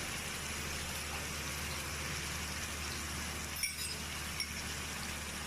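Chopped onions and garlic paste sizzling steadily in hot oil in a karahi, with two light clinks, likely a spoon against the pan, a little past halfway.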